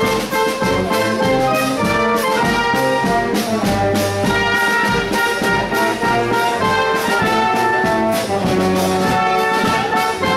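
Brass band playing live: trombones and trumpets carry a tune in held notes over a steady beat.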